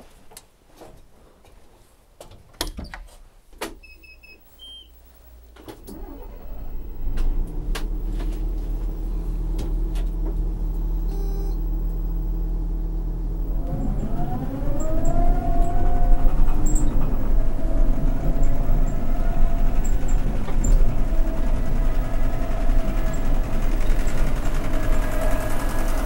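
A few clicks and a short electronic beep, then a Holmer Terra Dos harvester's diesel engine starts about six seconds in and runs steadily. About fourteen seconds in it revs up with a rising whine and stays louder as the machine drives off.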